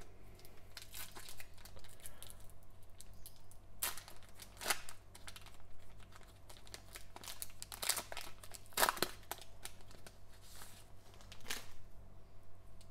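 Foil wrapper of a Panini Mosaic basketball card pack being torn open and crinkled by gloved hands: irregular crackling, with louder crinkles about four, five, eight to nine and eleven and a half seconds in.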